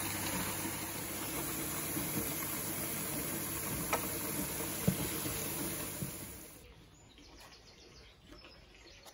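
Tap water running into a plastic washing-up bowl filling in a sink, with a couple of light clicks partway through. It stops about six and a half seconds in, leaving only faint background.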